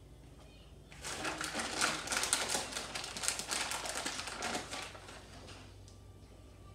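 Plastic bag of shredded cheese being handled, crinkling and crackling for about four seconds, then stopping.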